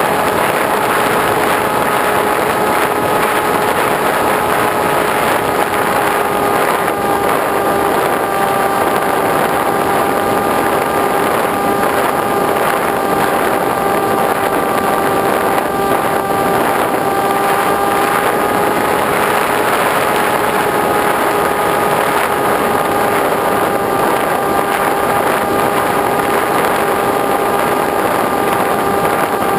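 Motor and propeller of a 37-inch RC plane, recorded by its onboard camera in flight: a steady, pitched drone holding nearly the same note, with dips and rises in pitch now and then, over constant rushing wind noise.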